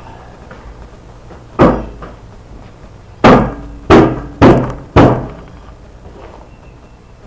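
Five heavy metallic thuds, each with a short ring, as a new steel fuel tank is knocked into place against its mounting brackets on a truck frame. The last four come quickly, about half a second apart.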